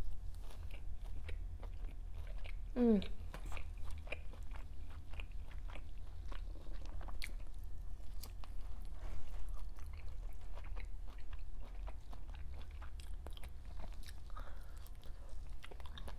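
A person chewing and biting food close to the microphone, with many small wet clicks and crunches, during a mukbang meal of steak, eggs and a charred jalapeño.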